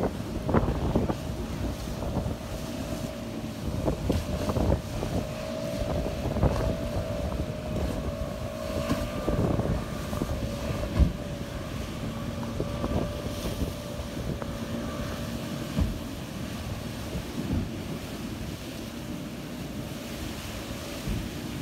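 Outboard motor of a small open boat running at speed, its pitch wavering as the boat rides over the waves and growing fainter near the end. Wind buffets the microphone throughout, with surf breaking on the rocks.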